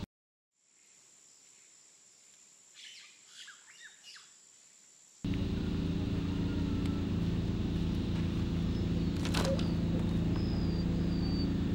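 Faint outdoor ambience with a thin high steady tone and a few short bird chirps. About five seconds in, it cuts abruptly to a much louder, steady low mechanical hum, with a couple more bird chirps over it.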